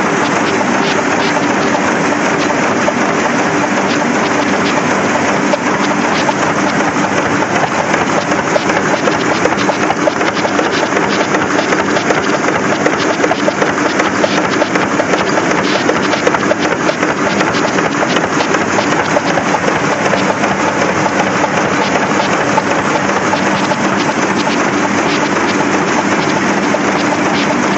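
Heidelberg Speedmaster XL 105 six-unit sheetfed offset press running in production as sheets are fed through it: a loud, steady mechanical hum with a dense, fast clatter of ticks.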